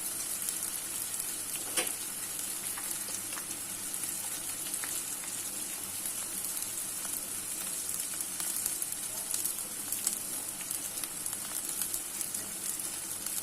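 Chopped onions and green chilli sizzling steadily in hot oil in a kadai, with one sharp tap about two seconds in.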